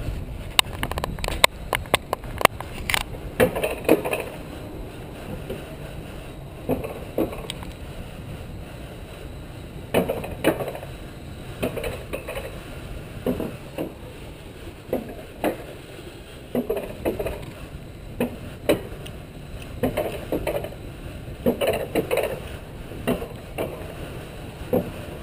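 Alpine coaster sled rolling down its metal rail track: a steady rumble of the wheels with sharp clacks and rattles, thickest in the first few seconds, and short louder whirs every few seconds.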